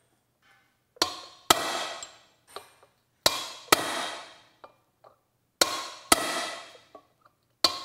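Ball peen hammer striking a steel punch to drive a broken press-fit lug stud out of a brake drum's hub. The blows come in pairs about half a second apart, seven in all, each ringing out briefly.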